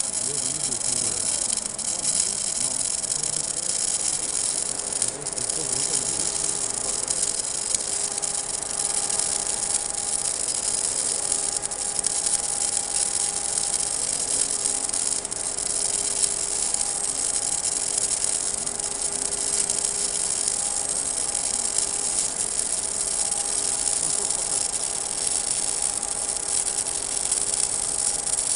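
Welding arc crackling and hissing without a break as a seam is run around a steel pipe turning on a roller welding rotator. A steady hum joins in a few seconds in.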